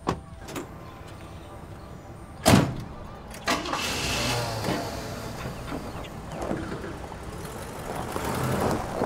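Light clicks of a car door, then a loud door slam about two and a half seconds in. A second later a 1970s Cadillac's V8 starts and keeps running as the car pulls away.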